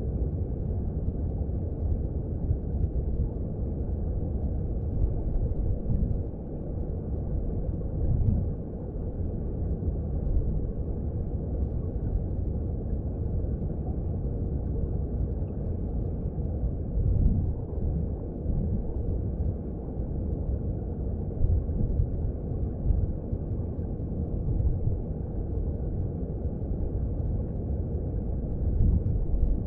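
Underwater sound of a mountain stream: a steady low rumble of flowing water, swelling a little every few seconds.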